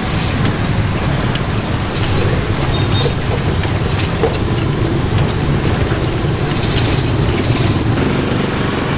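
Steady street traffic, mostly motorbikes passing, with a few faint clicks.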